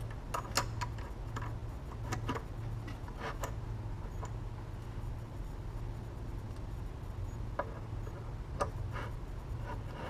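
Light clicks and knocks from small metal jig parts being handled and set down on a metal base plate: a scatter of short clicks, in a cluster over the first few seconds and again near the end, over a steady low hum.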